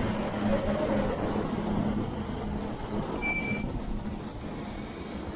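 Manhattan street traffic with a heavy vehicle's engine droning steadily, fading after about three seconds, and a short high beep about three seconds in.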